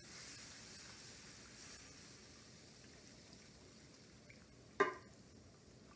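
Evaporated milk pouring from a can into a roux in a skillet as it is whisked in: a faint, soft liquid sound, a little louder in the first couple of seconds. A brief sharp sound near the end.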